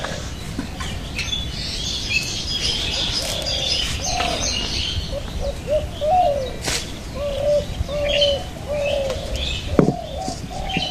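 Birds calling: high chirping for the first few seconds, then a steady run of short, low, repeated calls through the rest. A couple of sharp knocks stand out, one about ten seconds in.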